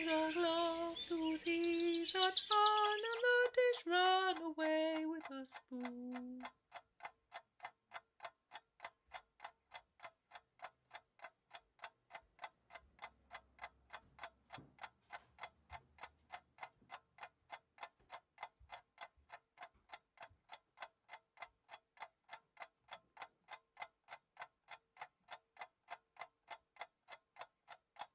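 A brief phrase of pitched, stepping notes, then a clock ticking steadily at about two ticks a second.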